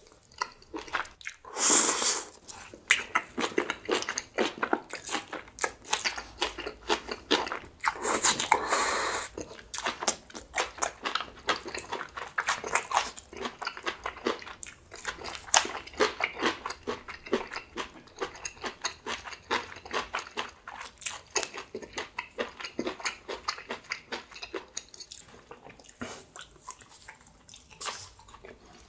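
Close-miked chewing of grilled small octopus (nakji horong-i) wrapped in spicy green onion kimchi: a steady run of quick chewing clicks, with louder bites about two and eight seconds in.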